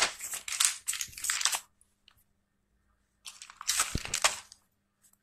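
Paper rustling as a notebook page is turned over, in two bursts a couple of seconds apart, with a soft thump about four seconds in as the page settles.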